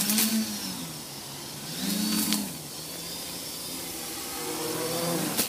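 Quadcopter's brushless motors and propellers humming in flight, the pitch swelling and falling twice as the throttle changes, with a faint high whine over it; a sharp click near the end.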